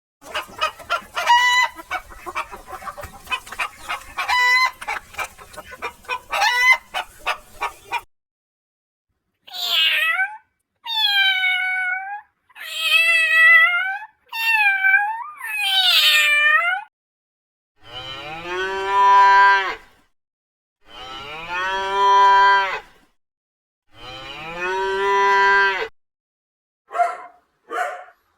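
A series of different animal calls: rapid chattering cries for about eight seconds, then five high calls that slide down and back up in pitch, then three long, low, drawn-out calls, and two short cries near the end.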